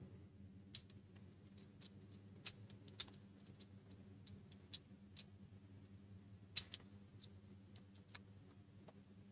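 Scattered light clicks and taps, about ten at irregular intervals, from small tools and parts being handled on a repair bench, the sharpest about two-thirds of the way through, over a faint steady electrical hum.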